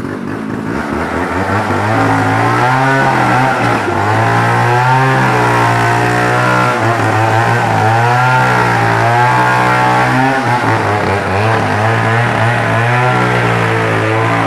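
A small petrol engine running hard for the whole stretch, its pitch dipping and recovering a few times as if it comes under load and then frees up.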